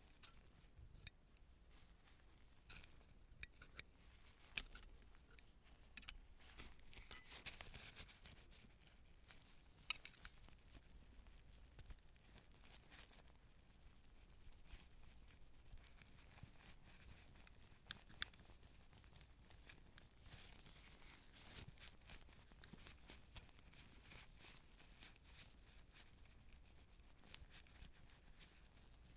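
Quiet close-up handling of surgical instruments and wrappers: scattered small clicks and light metallic clinks with soft rustling and tearing, and two sharper clicks about ten and eighteen seconds in.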